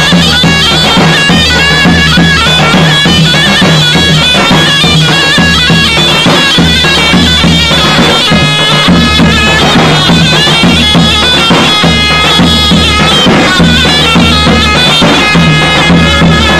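Davul and zurna playing loud halay dance music: the shrill double-reed zurna carries the melody over the steady bass beat of the davul.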